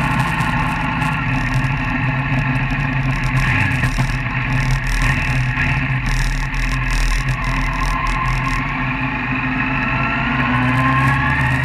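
Road vehicle's engine running steadily at cruising speed with road noise. Its pitch climbs over the last couple of seconds as it accelerates.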